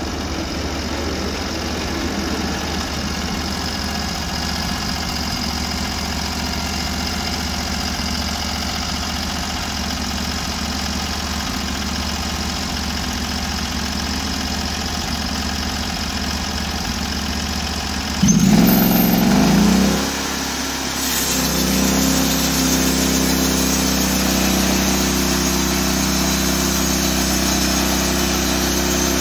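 Norwood portable bandsaw sawmill's engine running at idle, then about 18 seconds in a loud surge as it speeds up, after which it runs steadily at a higher, stronger pitch.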